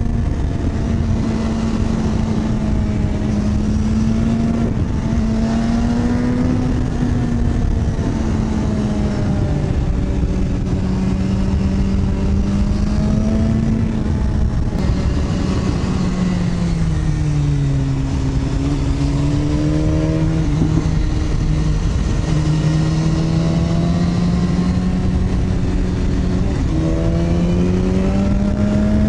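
Inline-four sportbike engine running at steady cruising revs, with heavy wind rush over the microphone. The revs ease down a little after halfway and climb again near the end.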